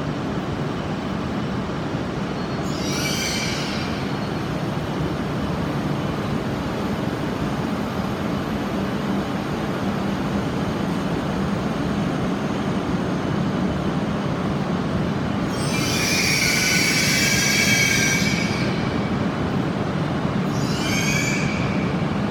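Shinkansen train running slowly into the station with a steady low running noise, broken by high brake squeals: a short one about three seconds in, a longer one from about fifteen to nineteen seconds in, and another short one near the end.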